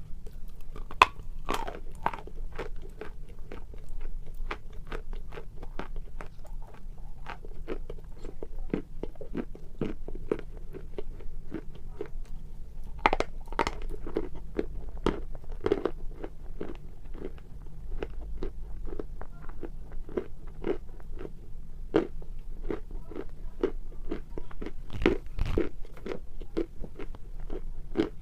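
Close-up biting and chewing of Grey Pearl eating chalk: a dense run of crisp crunches and cracks, louder about halfway through and again near the end.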